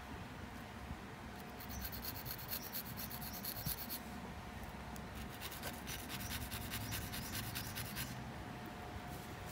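Small steel fish hook point being rubbed on a stone block to sharpen it: quick repeated scratching strokes that start about a second and a half in and stop near the end.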